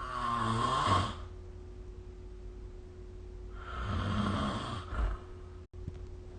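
A sleeping person snoring: two snores about four seconds apart, each lasting about a second. A faint steady hum runs underneath.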